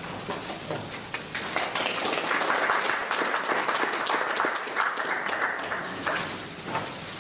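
Audience applauding. It swells over the first couple of seconds and dies away near the end.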